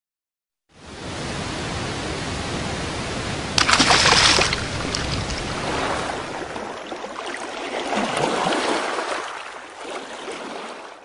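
Rushing water, like a stream, starting about a second in, with a louder splash lasting under a second about four seconds in, then dying away near the end.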